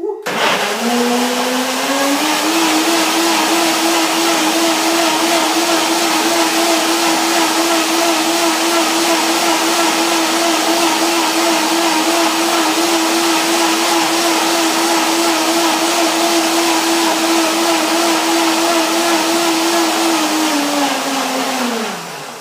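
Countertop blender motor running as it blends a banana into pumpkin seed milk. It spins up over the first two seconds, runs at a steady high speed, then winds down with falling pitch near the end.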